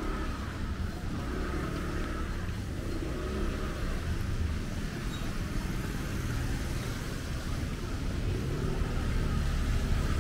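Road traffic: cars running past with a steady low engine and tyre rumble, growing louder near the end as a vehicle comes closer.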